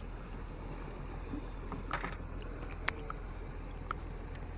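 A few light clicks and ticks from fishing tackle, hooks and a wire trace being handled by fingers close to the microphone, a small cluster about two seconds in and single sharp ones later, over a steady low outdoor background.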